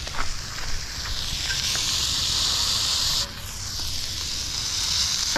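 Meat frying in a small pan on a portable stove, a steady sizzle that drops off sharply about three seconds in and then builds back up.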